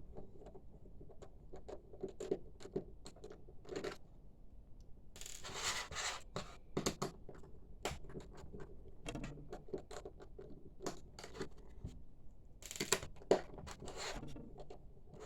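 Screwdriver backing small Phillips screws out of an SSD casing: irregular scratching, scraping and small clicks, with louder bursts about five to six seconds in and again near thirteen seconds.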